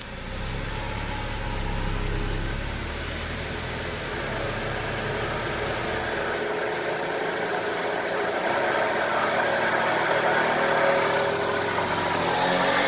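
A 2007 BMW E93 on the move with a bad wheel bearing droning, the drone growing louder as the car gathers speed.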